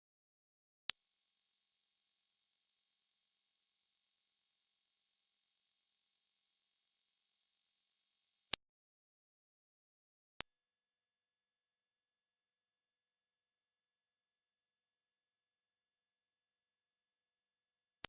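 Electronic pure test tones of a dog-whistle sound test. A steady high-pitched tone starts about a second in and holds for about seven and a half seconds, then stops. After about two seconds of silence, a second, much higher steady tone, roughly an octave up, follows.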